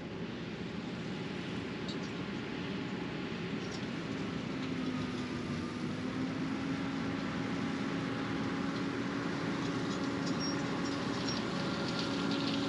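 Heavy farm vehicle's engine running steadily under a rushing noise, with a steady hum that comes in about four seconds in and grows slightly louder.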